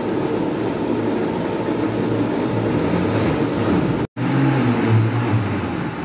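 Countertop blender running steadily, puréeing sweet corn kernels in milk, with a sudden brief break about four seconds in before it runs on.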